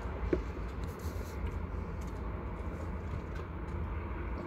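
Steady low rumble of a car's cabin with the engine running, with a faint click near the start.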